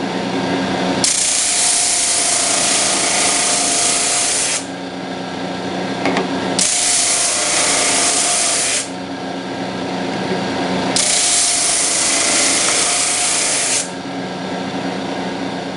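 A 30-inch Flatmaster drum sander with a half-horsepower motor running steadily, with three sanding passes of a few seconds each. During each pass the abrasive drum grinding across the wooden segmented ring gives a loud hiss that starts and stops abruptly, and between passes only the motor's hum is heard.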